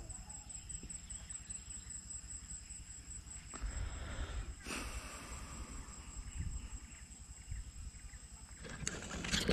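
Insects calling steadily in a thin, high, pulsing tone, over low rumbling noise, with a brief louder rustling swell about four seconds in.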